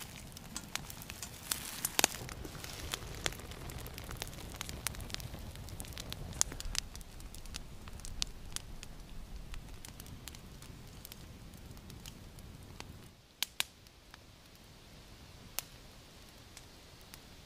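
Campfire crackling and popping, with sharp irregular snaps over a low steady rumble of flames. About three-quarters of the way through the rumble drops away, leaving only occasional pops.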